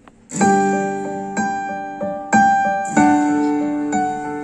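Karaoke backing track starting about a third of a second in: keyboard chords struck roughly once a second, each ringing and fading before the next.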